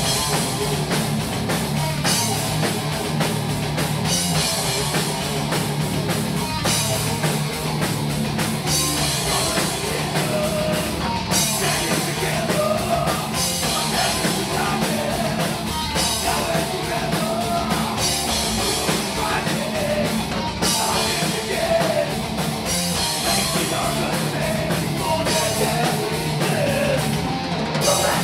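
Heavy metal band playing live, with a drum kit and guitars going hard throughout.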